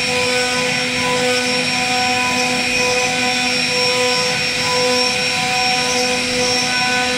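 The spindle of a CNC wood-carving router runs with a steady whine of several tones while its small carving bit cuts a wooden door panel.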